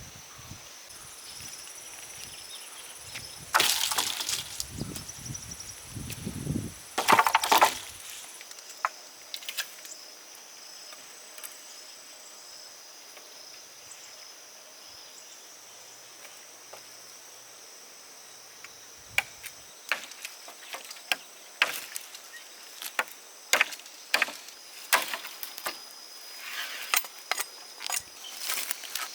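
Rice stalks being cut and handled by hand: irregular crisp snaps and rustles, two louder bursts a few seconds in and a denser run of snaps near the end, over a steady high insect trill.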